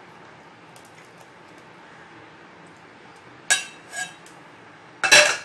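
Steel kitchen utensils clinking as a vessel of jaggery syrup and a steel tea strainer are handled over a pressure cooker: two light clinks about three and a half and four seconds in, then a louder clatter near the end, over a faint steady hiss.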